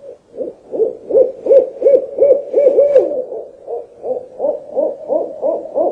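Owl hooting: a long, even run of quick low hoots, about three a second.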